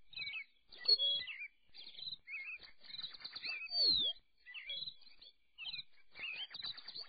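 Many small caged finches chirping and twittering at once in short overlapping calls, with one louder downward-sliding call about four seconds in.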